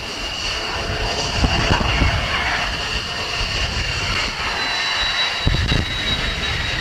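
F-16 fighter jet's turbofan engine on landing approach: a steady jet whine with a high tone that starts to rise about two-thirds of the way through, over a gusty low rumble.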